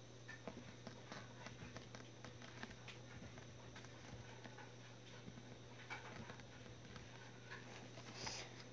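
Ballpoint pen writing on notebook paper: faint, irregular scratches and ticks of the pen tip, over a steady low hum. A short breath near the end.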